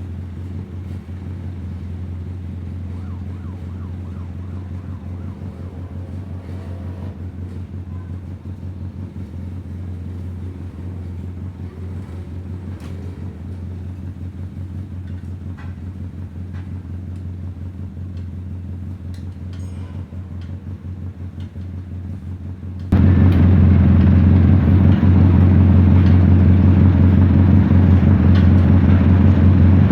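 Bajaj Kawasaki CT100 single-cylinder motorcycle engine running steadily with light ticking, freshly reassembled after an overhaul; it abruptly becomes much louder about 23 seconds in.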